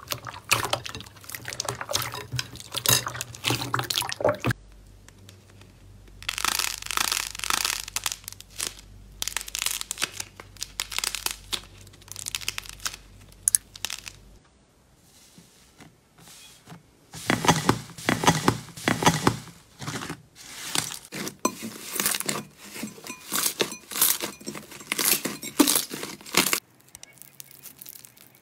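Hands squeezing, poking and stretching slime in a series of short clips: bursts of sticky crackling pops, crunches and tearing, with brief pauses between handfuls.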